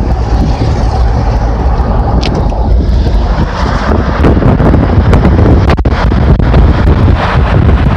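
Road and engine noise of a moving car heard from inside, with wind rushing over the microphone; the wind noise grows fuller and a little louder about three seconds in.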